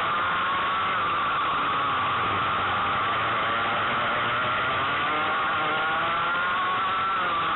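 Racing kart engine heard from on board, its pitch climbing slowly as it gains revs and dropping near the end as it eases off, with a rushing noise over it.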